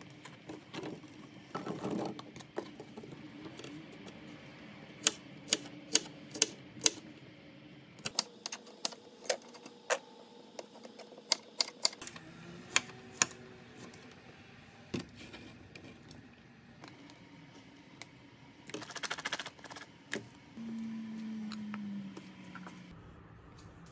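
Kitchen knife chopping okra pods into rounds on a plastic cutting board: a run of sharp, irregular taps of the blade hitting the board, with a brief scraping stretch about three quarters through.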